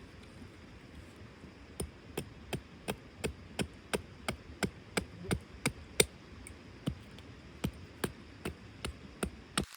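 A steady series of sharp blows from a hand tool, about twenty strikes at roughly three a second, starting a couple of seconds in, with a brief pause after the loudest blow midway.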